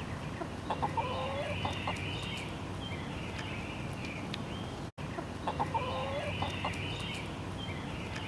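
Chickens clucking, with short, repeated calls. The same few seconds of clucking play twice, with a brief dropout about five seconds in.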